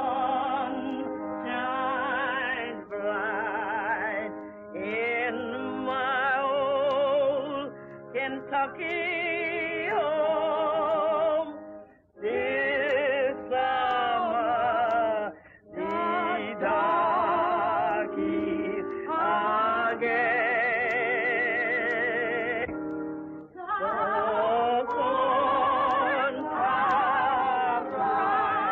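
A woman singing a song in a trained, operatic style with strong vibrato and long held notes, over steady instrumental accompaniment, with brief pauses between phrases.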